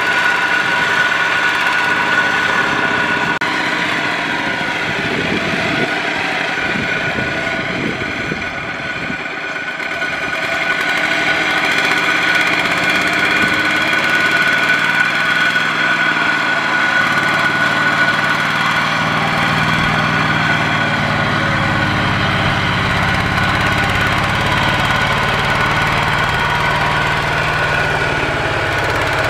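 Kubota ZT155 single-cylinder diesel engine on a two-wheel walking tractor running under load, pulling a loaded trailer through mud. It runs with a steady knocking chug and a high whine. A deeper engine drone comes in a little over halfway.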